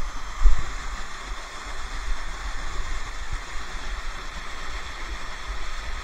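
Steady rush of falling water from a waterfall, with uneven low rumbling underneath.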